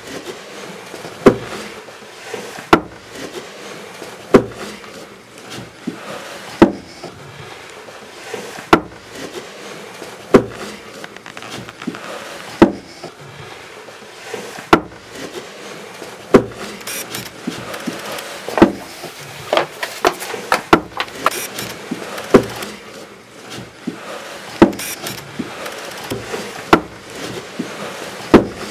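Sharp knocks over a steady hiss. They come about every two seconds at first, then faster and less regularly from about halfway.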